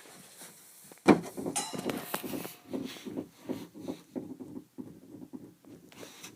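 A sharp knock about a second in, then a run of soft, irregular footsteps with rustling as someone moves about.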